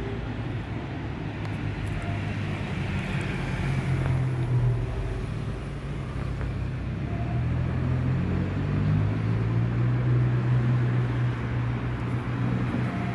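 Steady low rumble with a wavering low hum that grows stronger about halfway through.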